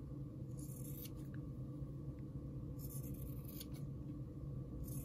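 Small scissors snipping the seam-allowance corners off sewn cotton quilt pieces (easy-corner triangles), three short cuts a second or two apart, over a low steady hum.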